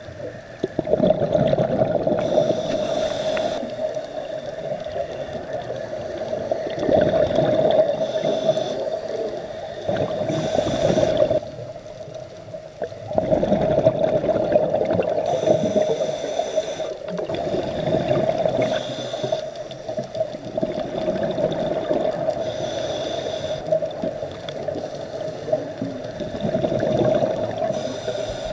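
Scuba diver breathing through a regulator underwater: a hiss on each inhale and a burst of bubbling on each exhale, repeating every few seconds, over a steady hum.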